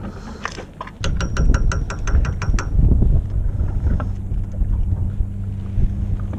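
Fishing boat's engine running with a steady low hum, and wind on the microphone. About a second in comes a quick run of about a dozen sharp clicks, roughly seven a second, that stops after about a second and a half.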